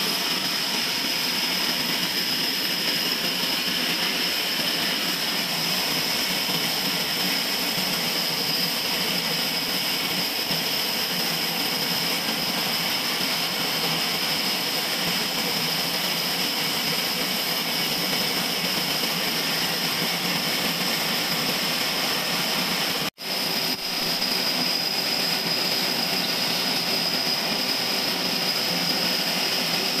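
Large log band sawmill running steadily: a constant mechanical noise with a high, steady whine. It breaks off for an instant about 23 seconds in.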